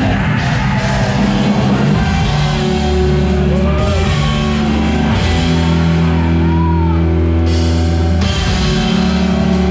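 Loud rock music with drums and guitar, low held notes changing every second or two.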